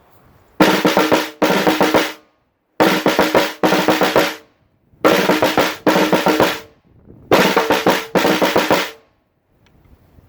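Slingerland 15×12-inch marching snare drum, converted for kit use, played in four short bursts of rapid strokes, each burst in two halves with a pause of about a second between bursts. The drum has fresh heads and a 40-strand snare wire, and its shell rings with a pitched tone under the snare buzz.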